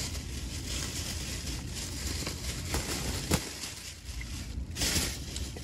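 Low room hum and background noise with scattered faint rustles, a single sharp click about three seconds in, and a brief rush of noise near the end.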